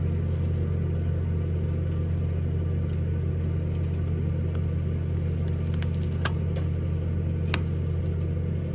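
Heavy-equipment engine running at a steady speed, a deep even hum, with two or three sharp ticks in the second half as the winch cable draws tight around the drum.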